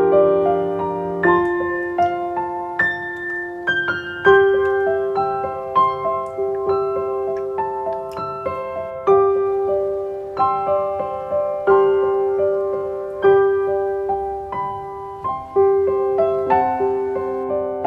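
Background piano music: a slow melody of struck notes, each fading after it is played.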